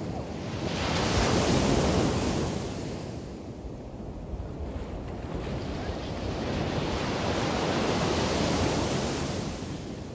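Small sea waves breaking and washing onto the beach, with wind on the microphone; the rushing noise swells twice, about a second in and again later.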